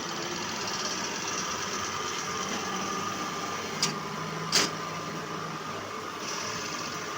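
Diesel engine idling steadily, with two sharp clicks about four seconds in.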